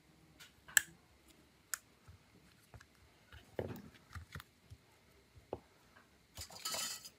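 Scattered sharp clicks and light taps of small tablet parts being handled, the loudest click about a second in, a duller knock midway, and a short rustling scrape near the end.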